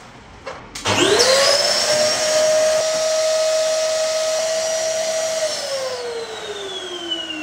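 Red upright vacuum cleaner, used with its hose, switched on about a second in: the motor whines up to speed and runs steady. About five and a half seconds in it is switched off, and the whine falls in pitch as the motor winds down.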